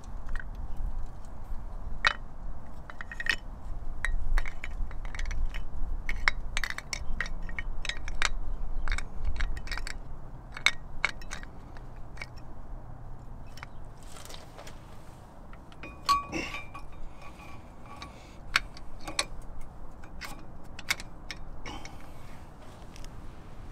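Scattered metal clicks and clinks as a disc brake caliper on its steel mounting bracket is handled and offered up to a rear brake rotor, with a brief metallic ring about 16 seconds in. A low rumble runs under the first half.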